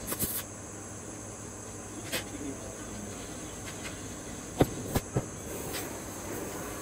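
A few sharp metallic clicks and knocks from tools being handled on a steel welding table, three of them close together about four and a half to five seconds in, over a steady shop hiss.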